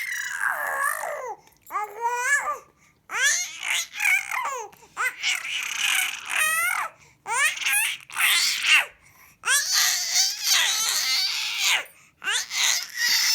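A small child babbling and squealing in short, high-pitched bursts of voice, the pitch sliding up and down, with brief pauses between.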